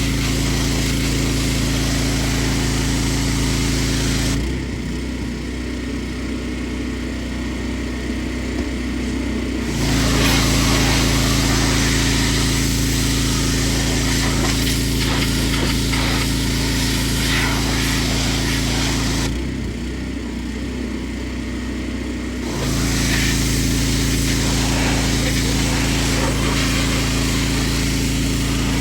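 Petrol-engine pressure washer running steadily with the spray hissing. The spray stops twice, for about five seconds about four seconds in and for about three seconds later on, while the engine keeps running.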